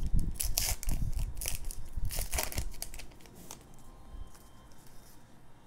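Trading-card pack wrapper crinkling and tearing as it is opened by hand, with the cardboard blaster box handled at the start: a run of rustling bursts over the first three seconds, then faint handling.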